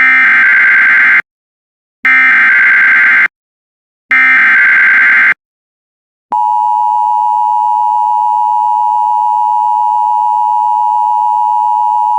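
Emergency Alert System SAME header: three loud data bursts, each a little over a second long with short gaps between them. About six seconds in, the steady two-tone EAS attention signal starts and holds, announcing that a warning message follows.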